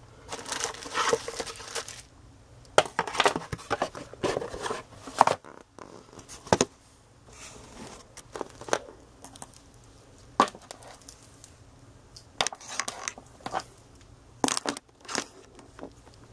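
Handling noise: irregular spells of plastic rustling and crinkling, broken by a few sharp clicks and knocks, as the multimeter's test leads and the camera are handled and set down.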